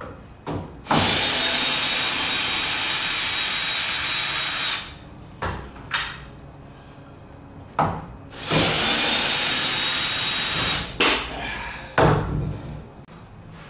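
Cordless drill driving screws into a wooden 2x6 brace: two long runs of the motor, about four seconds and then about two seconds, with several short bursts and knocks between and after them.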